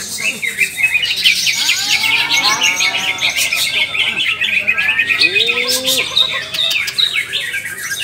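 Many caged green leafbirds (cucak ijo) singing at once in competition: a dense, unbroken chorus of rapid chirps, trills and sweeping whistles.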